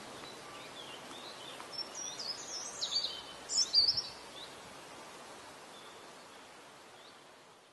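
Outdoor field ambience with a steady background hiss, and a small songbird's quick, high-pitched warbling phrases about two to four seconds in. The whole fades away near the end.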